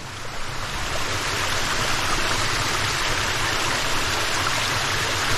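Mountain stream water rushing and splashing over rocks, a steady rush that grows louder within the first half second and then holds level.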